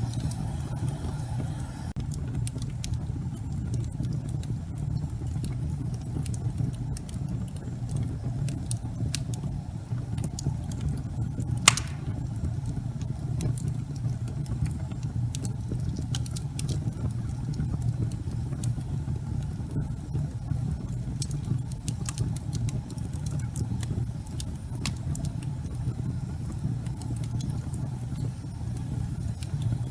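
Wood logs burning in a fireplace, crackling with scattered sharp pops over a steady low rumble of the fire. One pop about twelve seconds in is much louder than the rest.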